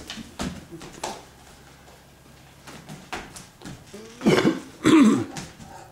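Two short, gruff vocal sounds in quick succession near the end, each with a bending low pitch, after a few light clicks and taps.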